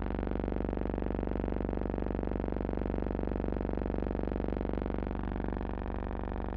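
A steady buzzing hum with many overtones, holding one pitch and level throughout.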